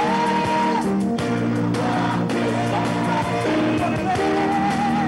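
Gospel worship choruses sung by a lead singer and a group of backing singers, with instrumental accompaniment and a steady beat. The lead voice holds long notes.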